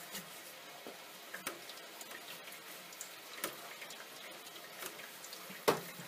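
Cloth wiping around an espresso machine's group head, faint, with scattered light clicks and one sharper tap near the end.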